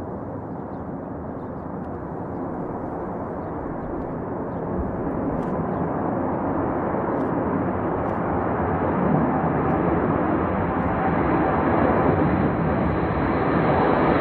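B-52 bomber's eight jet engines at takeoff thrust: a steady rush of jet noise that grows louder as the bomber rolls toward the microphone and lifts off.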